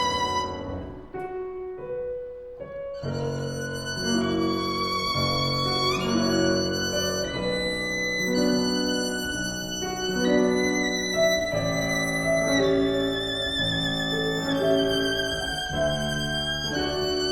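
Violin playing a slow, lyrical melody with vibrato over piano accompaniment. Near the start a chord dies away into a brief quieter stretch of sparse notes, and the violin comes back in about three seconds in.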